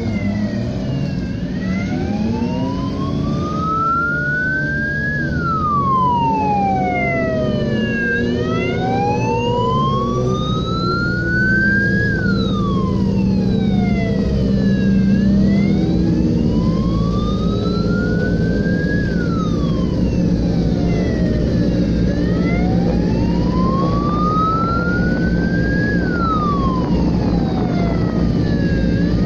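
A siren wailing slowly, rising over about four seconds and falling over about three, four times over, above the steady running of racing car engines.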